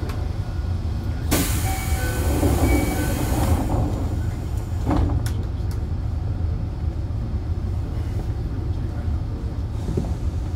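Interior noise of a Toei Asakusa Line 5300 series subway car, heard from directly above its VVVF inverter: a steady low rumble, with a loud hiss starting about a second in and lasting about two seconds, and a few sharp clicks near the middle.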